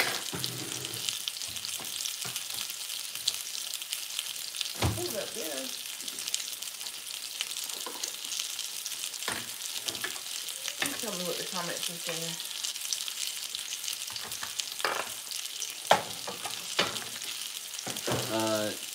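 Chicken breasts sizzling in oil in a frying pan, a steady hiss. Scattered sharp clicks and knocks of utensils come over it, the loudest about 16 seconds in.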